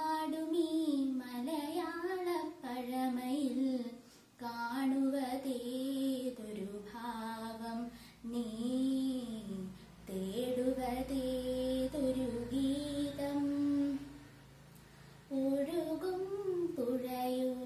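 A girl singing a Malayalam song solo, without accompaniment, in long held notes that glide up and down. She breaks off briefly near the end, then goes on singing.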